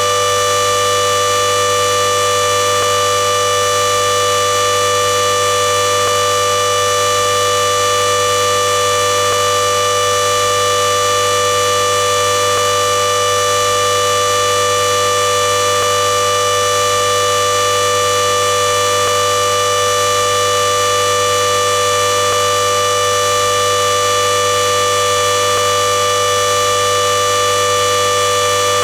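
Klexen DS8 washing machine spinning at full speed on its spin cycle: a loud, steady whine of several tones held at one pitch.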